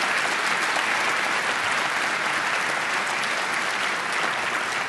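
Audience applauding, the steady, dense clapping of many hands.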